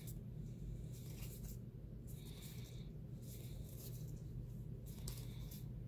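Magic: The Gathering trading cards being handled and slid past each other, making a few soft rustles, about four brief brushes, over a steady low hum.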